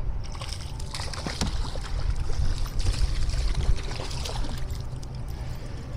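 Wind buffeting the microphone in a low, uneven rumble, with water splashing and lapping and scattered small knocks.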